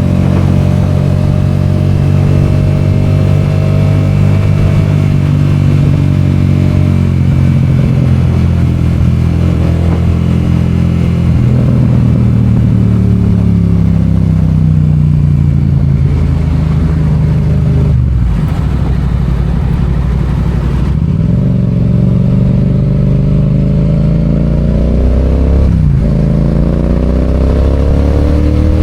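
Yamaha FZ-07's 689 cc parallel-twin engine under way. Its pitch eases down as the bike slows, breaks off briefly twice, then rises as it accelerates again, with a gear change about 26 seconds in.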